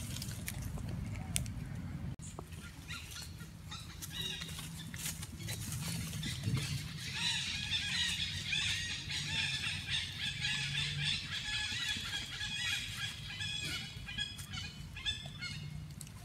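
Many short, high-pitched animal calls repeating rapidly, thickest in the middle of the stretch, over a low steady hum.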